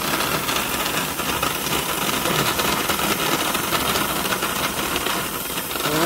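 Motor-driven coffee mill of a homemade coffee machine grinding coffee beans: a steady whirring noise with a dense, fast crackle of beans being crushed.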